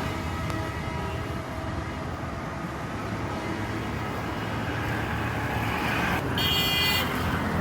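Steady road traffic rumble, with a short, high-pitched tonal sound a little past six seconds in that is the loudest moment.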